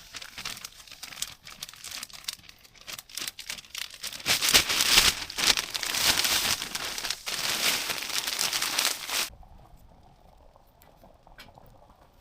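Packaging being crumpled and handled: a dense, continuous crinkling that grows louder about four seconds in and stops abruptly about nine seconds in, followed by a few faint ticks.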